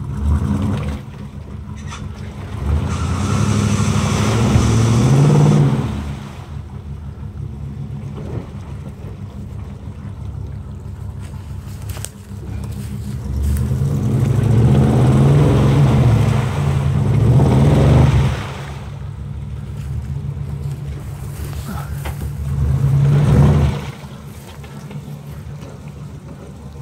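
A 4x4 SUV's engine is revved hard three times as it churns through a deep mud hole, its pitch climbing and falling with each push, with the splash and spray of spinning tyres in mud and water. Between pushes it settles to a lower steady running.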